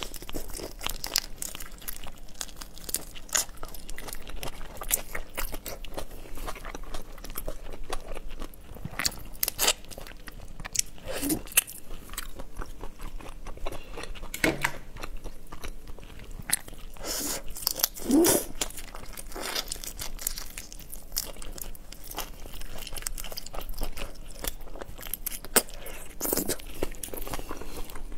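Close-miked eating of whole soy-marinated shrimp: shells crunching and cracking between the teeth, with wet chewing. It is a continuous run of small crackles, with a few louder bites.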